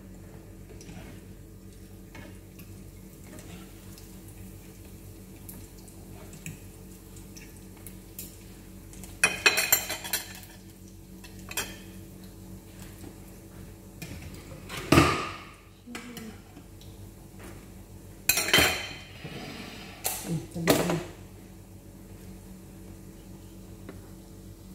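Plates and cutlery clinking and clattering on a kitchen counter in several short bouts, the loudest about two thirds of the way in, over a steady low hum.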